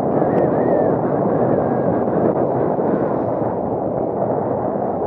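Water rushing and splashing along the hull of a Tiwal 3 inflatable sailing dinghy moving at about nine knots, mixed with wind buffeting the microphone. The noise is loud and steady.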